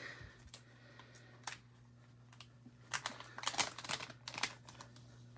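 Light clicks and crinkles of trading cards and their plastic packaging being handled: one at about a second and a half, then a quick flurry from about three seconds in. A faint steady low hum lies under it.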